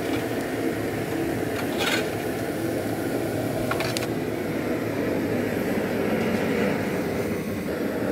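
Forge running with a steady rushing noise while a fluxed steel billet heats toward welding temperature, with a few faint clicks about two and four seconds in.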